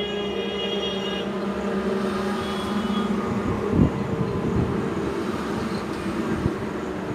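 Heavy truck engines running on the road, a steady drone, with a high tone in the first second and a short thump about halfway through.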